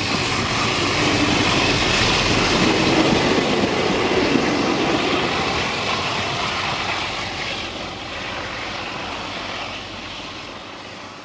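Alco diesel locomotives 4520 and 4490 hauling a passenger train past: a steady engine drone mixed with the rolling of the carriages. It fades away steadily over the second half as the train draws off.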